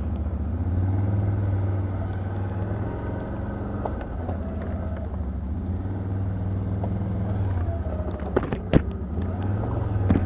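Can-Am Outlander ATV engine running steadily at low trail speed, with a few sharp knocks a little past eight seconds in.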